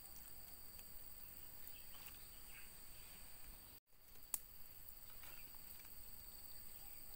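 Faint, steady high-pitched insect chirring, holding at two pitches, over quiet riverside background. The sound cuts out for an instant a little past halfway, followed by a single sharp click.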